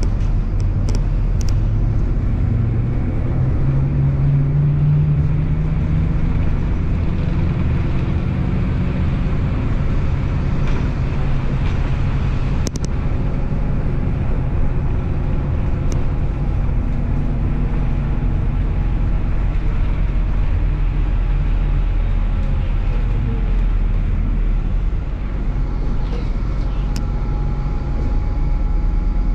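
MAZ-103 city bus under way, heard from inside the cabin: its engine hum and steady road noise, with the engine note growing stronger a few seconds in. Two short sharp clicks or rattles come near the middle.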